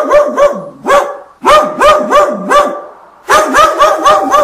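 A dog barking in quick runs of rapid barks, about five a second, with short pauses between the runs.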